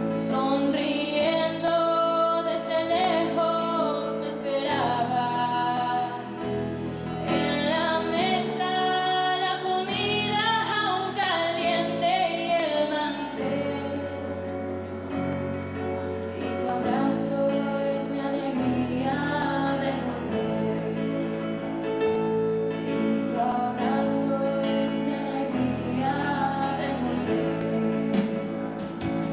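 A woman singing a slow devotional song over instrumental accompaniment, with sustained bass notes and a steady tapping beat.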